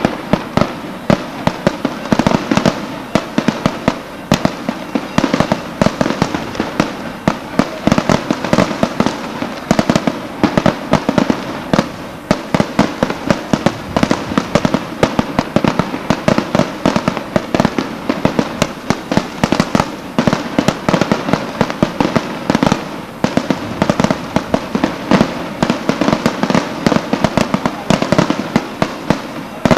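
Aerial firecrackers bursting overhead in an unbroken rapid string of sharp bangs, many a second.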